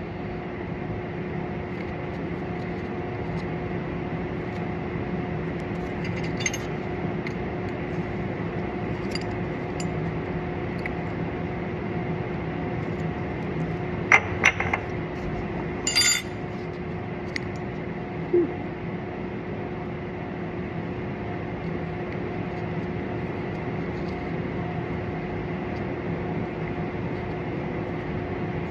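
A few sharp metallic clinks of steel tools and parts being handled, loudest about halfway through, over a steady hum.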